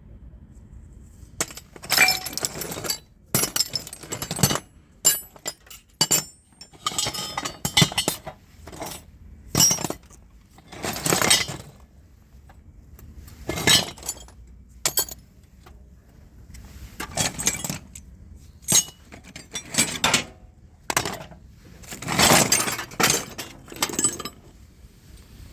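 Pieces of metal scrap and tools clattering and clinking as they are handled and dropped, in a dozen or so separate bursts of clanking.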